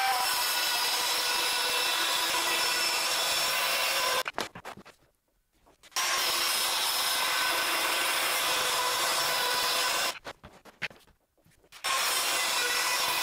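Bosch circular saw cutting white chipboard along a guide rail, its motor making a steady whine. There are three cuts, each lasting about four seconds, with the saw stopping about 4 and 10 seconds in.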